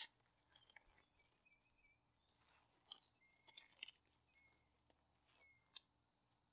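Near silence: quiet room tone with scattered faint clicks and taps, the sharpest about a second in and around three and a half to four seconds in, plus a few brief high chirps.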